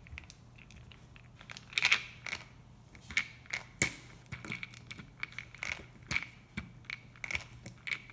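Small flathead screwdriver prying at a metal connecting tab on a NiCad battery pack's cell stack, the metal bending as it is worked loose: a series of irregular sharp clicks and scrapes, loudest about two seconds in and again near four seconds in.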